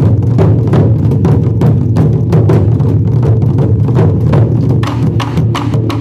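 Ensemble of Japanese taiko drums struck with wooden bachi sticks, playing a fast, steady rhythm of several strikes a second with a deep drum tone.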